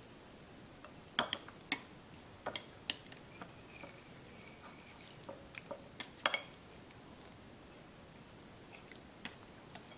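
Chopsticks clicking against a ceramic bowl as a raw salmon fillet is turned in its marinade: a scattering of sharp taps, most of them in the first few seconds and a pair a little past the middle.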